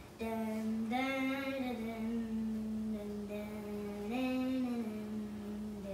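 A single voice singing a slow wordless tune in long held notes, the pitch lifting and falling back twice.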